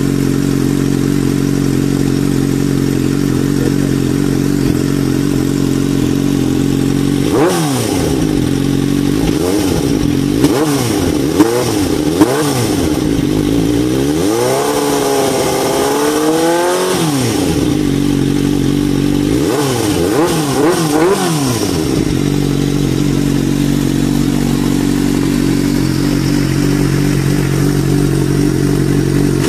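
Suzuki GSX-R600 inline-four through an aftermarket stainless slip-on exhaust, idling steadily, then revved: several short throttle blips from about seven seconds in, with a couple of sharp pops between them, one longer rev that climbs and falls in the middle, a few more quick revs, then back to a steady idle for the last several seconds.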